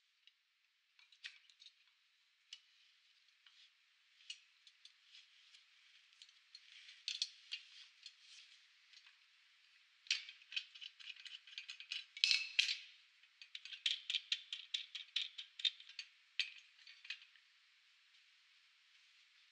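Metal clicking and rattling from a Wallmek HSC2018 hydraulic spring compressor as its jaws are worked and a car coil spring is taken out of them. Scattered ticks build to a louder rattle about twelve seconds in, then a run of quick clicks, several a second, that stops a couple of seconds before the end.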